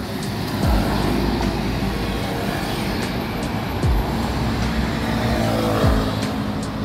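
Street traffic, with cars and scooters passing over a steady road noise, mixed with background electronic music whose deep bass hits drop in pitch a few times.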